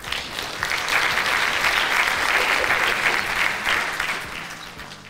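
Audience applauding, swelling within the first second, holding steady, then dying away near the end.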